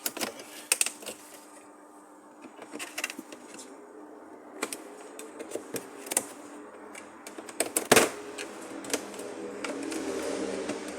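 Irregular sharp clicks and taps, with louder ones about a second in and around eight seconds in. A steady hum builds up near the end.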